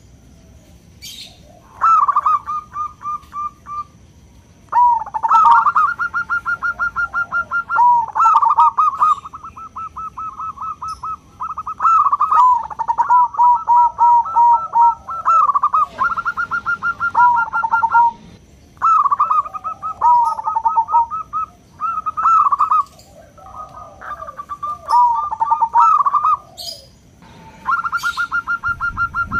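Zebra doves (perkutut) singing: repeated phrases of rapid, staccato coos, each run lasting one to three seconds with short pauses between.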